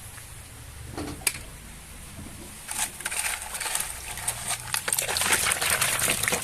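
Plastic toy vehicles being handled and shifted against each other, a clatter of small clicks and rattles. It starts with one sharp click about a second in and grows dense and louder from about three seconds in.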